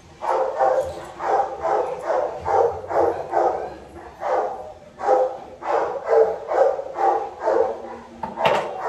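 A dog barking repeatedly, about two short barks a second, with a brief pause partway through and a sharper bark near the end.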